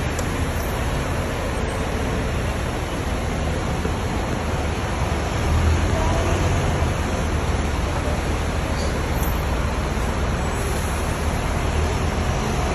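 Steady low rumble and hiss of double-decker buses running at a covered bus interchange, as one creeps slowly forward; a little louder about six seconds in.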